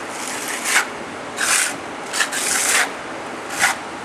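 A trowel scraping wet thin-coat cement patching mortar across a concrete floor, spreading it out to the edges in about five short strokes.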